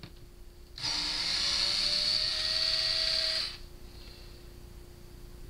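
Electric drill-driver running for about three seconds, its motor whine rising slightly in pitch, backing out a screw from the speaker cabinet.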